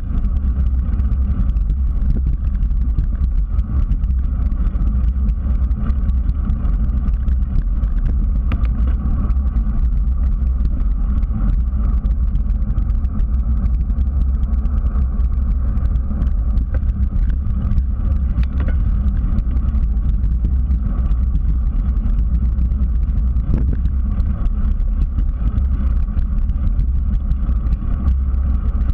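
Steady low rumble of wind buffeting and tyre noise on a bicycle-mounted GoPro as the bike rolls along an asphalt path, with a few faint clicks.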